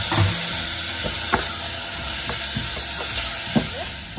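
Basmati rice and onion sizzling in hot oil in a stainless steel saucepan, a steady frying hiss. A few light knocks sound along the way, and the sizzle fades somewhat near the end.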